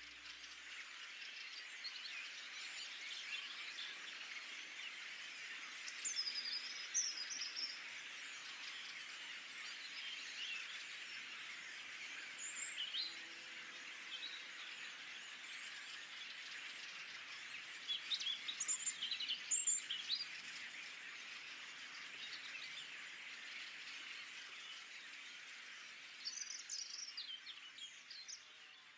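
Flock of starlings chattering at a reedbed roost: a dense, continuous mass of overlapping calls, with sharper chirps and whistles standing out now and then, fading near the end.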